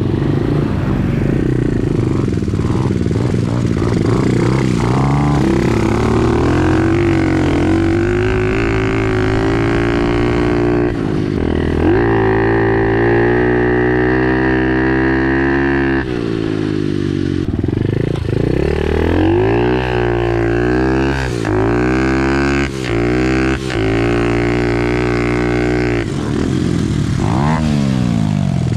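Pit bike engine running hard under the rider, droning at steady throttle for long stretches, then revving up and dropping off again and again as he works the throttle, with four-wheeler engines running alongside.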